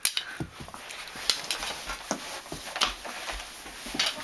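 Plastic mini hockey sticks hitting a tennis ball and clacking on a carpeted floor, with a handful of sharp knocks and scuffling between them.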